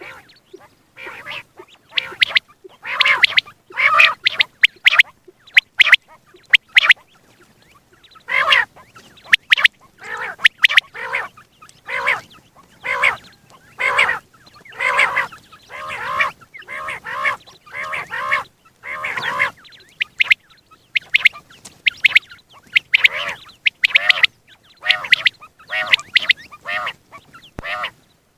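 Common quail calling over and over: short, harsh calls in quick clusters, repeated about once a second, with a brief pause about seven seconds in.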